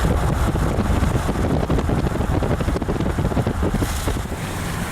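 Strong wind buffeting the microphone in uneven low gusts, easing a little near the end.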